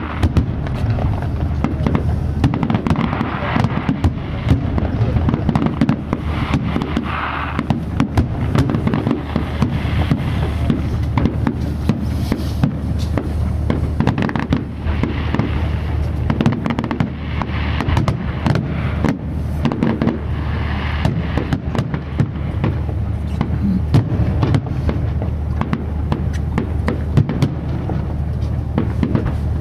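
Fireworks display: shells bursting in quick succession, a dense run of bangs and crackles over a steady low rumble.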